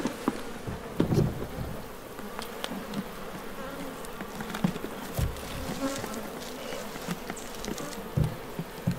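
Honey bee colony buzzing steadily in an opened wooden hive, with a few dull thumps of a hand against the hive box: about a second in, past the middle and near the end.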